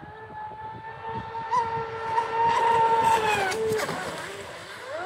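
Brushless electric motor of an RC speed boat (Pro Boat Supersonic Wake 48, TP4090 730kv motor) whining at high speed. It gets louder about two to three seconds in as the boat comes closer, dips in pitch and breaks up briefly around four seconds, then rises back to a steady high whine near the end.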